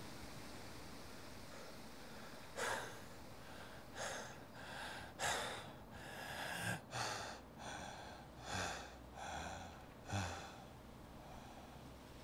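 A young man breathing heavily in quick, ragged gasps, about a dozen breaths, some with a slight catch of voice. The breaths begin a couple of seconds in and die away near the end, over a faint steady hiss.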